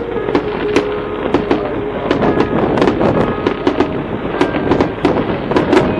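Fireworks display going off: a rapid, continuous run of bangs and crackles, several reports a second.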